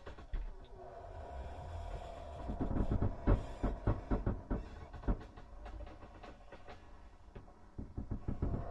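Ghost sound effect: a low rumble under a run of irregular knocks and rattles, busiest and loudest in the middle, with a faint held tone early on.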